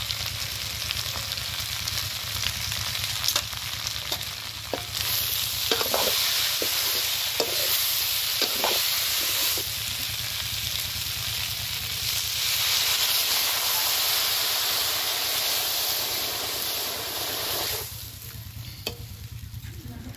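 Purple yam pieces frying and sizzling in an iron kadai, stirred with a metal ladle that scrapes and knocks against the pan a few times. The sizzle drops away suddenly near the end.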